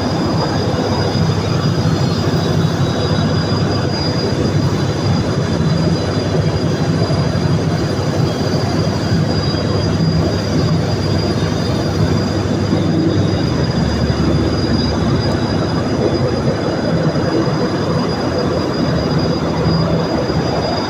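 Steady, loud mechanical running noise, a dense rumble and hiss with a constant high whine, unchanging throughout.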